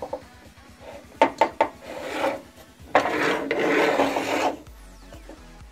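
Mitre gauge of a table saw being handled: a few sharp clicks about a second in, then its guide bar sliding along the metal table's slot, a scraping rub that lasts about a second and a half.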